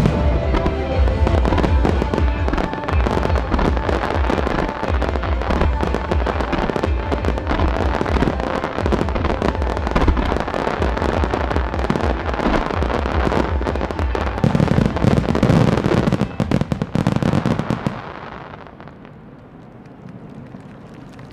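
A starmine barrage of fireworks: rapid bursts and dense crackling over deep booms, with music playing along. It stops about 18 seconds in, leaving a much quieter steady background.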